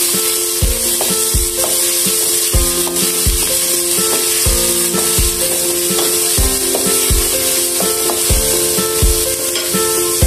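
Minced garlic sizzling in oil in a non-stick pot as it is stirred with a wooden spatula, under background music with a steady beat.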